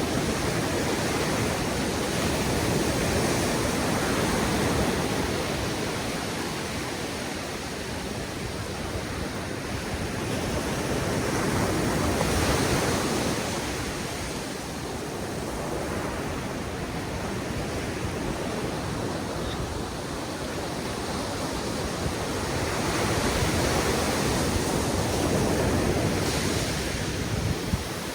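Ocean surf washing onto a beach: a steady rushing of breaking waves that swells and ebbs roughly every ten seconds.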